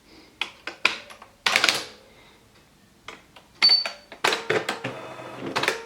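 Esselte 80 electric typewriter typing: a few single strikes, a quick rattling run of strikes about a second and a half in, then a longer burst of rapid printing with the machine's motor humming near the end.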